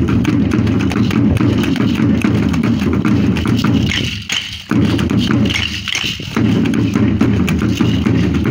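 Dance drum beating steadily for the danza, with sharp percussive clicks from the dancers' hand-held instruments over it. The drum breaks off briefly twice near the middle while the clicking carries on.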